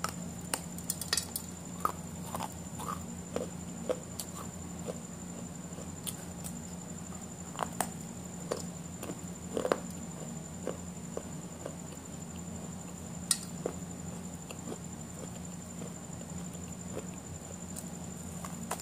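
A person eating: irregular wet chewing clicks and soft crunches of burger and fries, over a steady low background hum.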